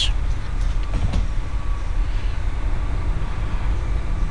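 Steady low background rumble in the microphone recording, the same noise that runs under the whole narration, with a faint steady tone above it and a couple of faint clicks about a second in.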